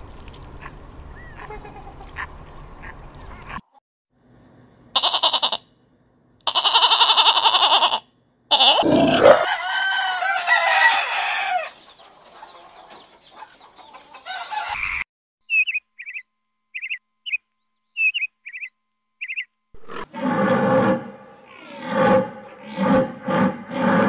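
Chickens calling: loud, harsh crowing-like calls, then a string of short, high chick peeps at about two a second. Near the end, a different animal gives a series of repeated pitched calls.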